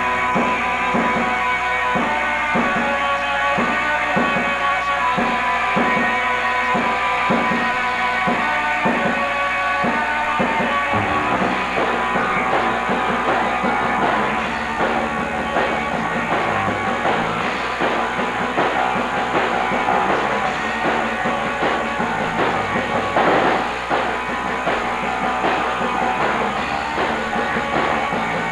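A band playing live on electric guitars and a drum kit: a steady beat about twice a second for the first ten seconds or so, then a denser, busier passage.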